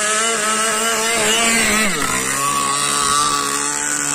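Zenoah G2D two-stroke petrol engine of a radio-controlled speedboat running at high revs. About halfway through its pitch drops sharply as the engine slows, then holds steady at the lower speed.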